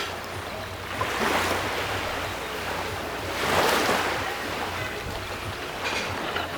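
Ocean surf washing in: rushing water noise that swells with one wave about a second in and a louder one at about three and a half seconds. A faint steady low hum runs underneath.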